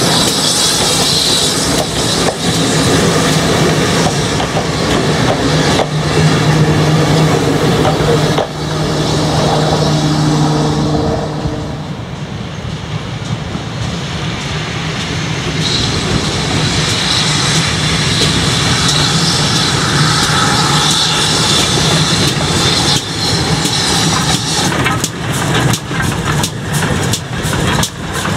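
GWR 57xx-class pannier tank steam locomotive working a train along the line, loud throughout. A run of quick rhythmic beats comes in the last few seconds as it passes.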